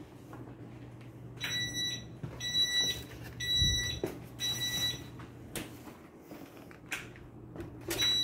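Electronic beeper sounding: four high-pitched beeps, each about half a second long and about a second apart, then a pause with a few light knocks and another beep at the end, over a steady low hum.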